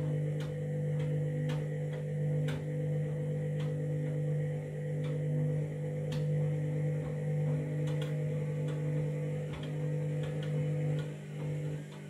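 Candy front-loading washing machine's drum motor running with a steady hum as the drum slowly tumbles a wet bedding load. Irregular clicks and knocks come about once or twice a second. The machine is struggling to distribute the load before its final spin, and the motor's higher tone drops away near the end.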